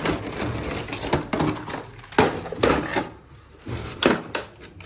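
A tool kit being handled: tools clatter in a few sharp knocks and clicks, with rustling handling noise between and a short lull in the middle.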